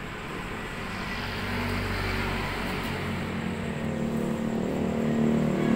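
A motor vehicle's engine running with a steady low hum, growing gradually louder.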